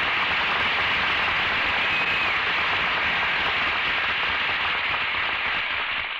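Studio audience applauding, a dense steady clapping that begins to fade away near the end.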